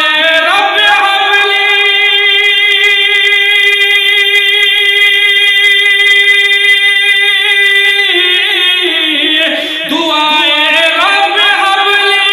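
A man singing an Urdu devotional kalam. He holds one long, steady high note for about seven seconds, then slides down into quick ornamented runs.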